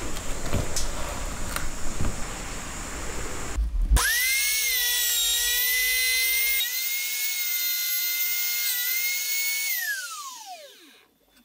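Handheld trim router starting about four seconds in with a high whine, running at steady speed while routing a slot in a plywood strip, then switched off and spinning down with a falling pitch near the end. Before it, light knocks and handling on plywood.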